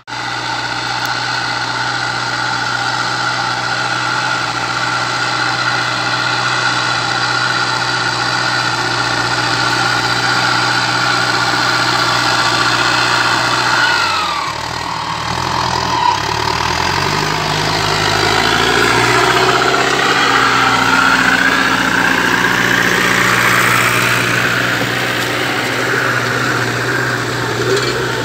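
Massey Ferguson 4275 tractor's diesel engine running steadily under load while pulling a disc harrow. Its pitch shifts about halfway through, and it grows louder as the tractor comes close.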